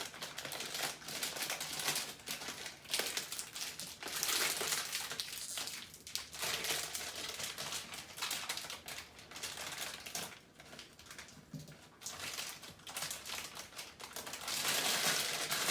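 Packaging crinkling and rustling as a mystery bag is opened and its contents handled by hand, in irregular crackly bursts, busiest about four seconds in and again near the end.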